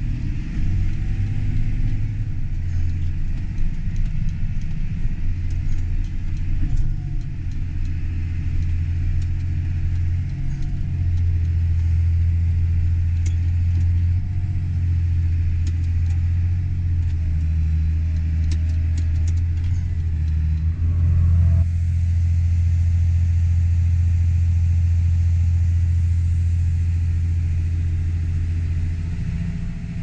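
Diesel farm tractor engine running, heard from inside the cab as a deep steady drone; the tone shifts about 21 seconds in.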